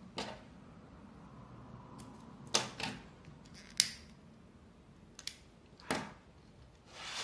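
Several sharp clicks and light handling noises as a disposable lighter is struck and held to the loose green thread ends to singe them off, with the loudest clicks a little before the flame shows.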